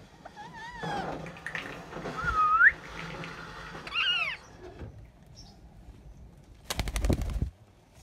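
Rose-ringed parakeets calling: a few wavering squawks, a loud upward-sweeping call about two and a half seconds in, and a falling call about four seconds in. Near the end comes a short burst of rapid rattling clicks.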